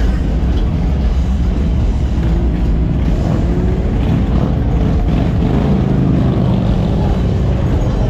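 Motorcycle engines running in a slow, continuous parade of bikes passing close by, with an engine revving up and down partway through.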